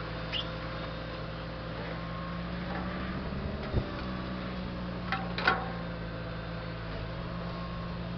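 Engine of the machine working a hydraulic crane arm, running steadily while the arm pulls a tarp off a sugar beet clamp. A few short squeaks and knocks stand out, the sharpest about three and a half and five and a half seconds in.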